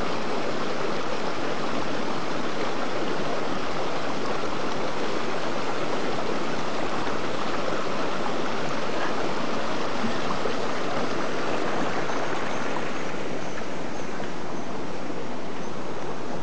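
Steady rushing of water, an even noise without breaks or distinct splashes.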